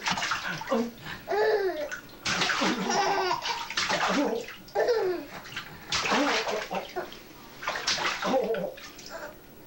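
A baby vocalizing in short squeals and coos that rise and fall in pitch, with bursts of breathy, hissing noise between them.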